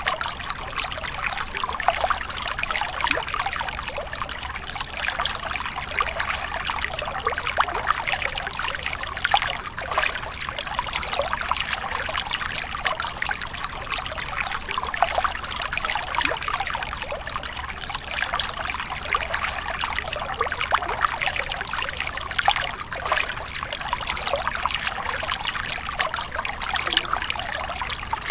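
A small stream trickling over mossy rocks and splashing into a shallow pool: a steady, even babble of many little splashes.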